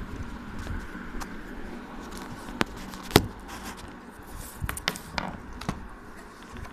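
A small plastic Bluetooth device being turned over and handled, giving a few sharp clicks and taps, the loudest about three seconds in.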